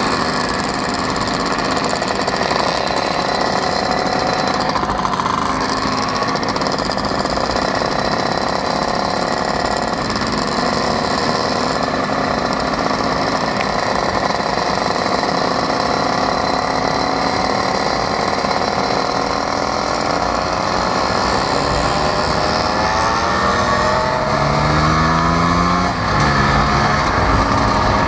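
Vintage Vespa scooter's small two-stroke engine running steadily under way, with wind rushing over the microphone. Near the end the engine note rises as the scooter speeds up.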